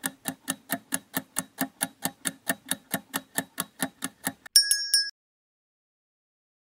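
Countdown timer sound effect: a clock ticking evenly, about four and a half ticks a second, for some four seconds, ending in a short bright ding.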